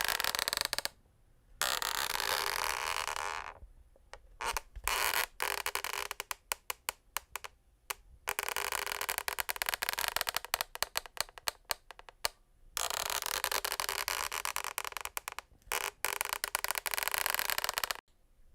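Wooden parquet floorboards creaking in long, drawn-out creaks several seconds each, separated by short pauses. In the middle stretch they break into quick runs of crackling clicks.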